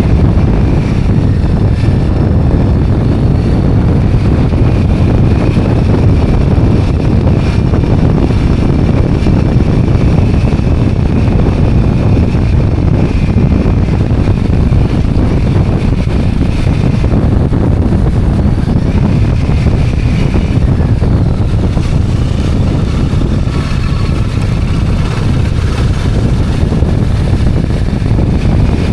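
Wind buffeting the microphone on a moving motorbike, a loud steady rumble, with the vehicle and traffic running underneath and faint higher tones coming and going.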